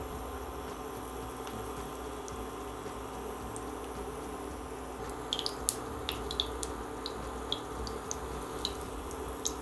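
Spoonfuls of yeast pancake batter frying in hot sunflower oil in a frying pan: a steady sizzle, with scattered sharp crackling pops from about halfway through.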